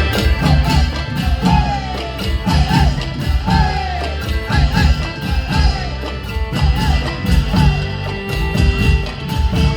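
Traditional Thai folk music: a steady low drum pulse under a wavering, sliding melody line.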